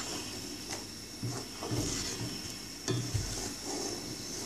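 A spatula stirring boiled eggs through a watery masala gravy in a karahi, scraping and knocking softly against the pan a few times. Under it the gravy sizzles steadily over medium-high heat.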